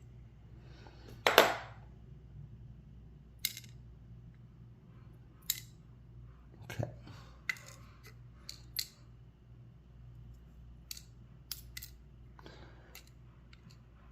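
Light metallic clicks and clinks at irregular intervals, about ten in all, the loudest about a second in: the small brass pin-tumbler pins and springs of an American Lock Series 5200 being taken out of the lock and set down one by one.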